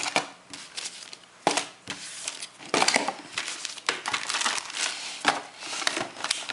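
Cardboard packaging box being handled and its flaps folded shut: irregular rustling and scraping of stiff card, with several sharper crackles.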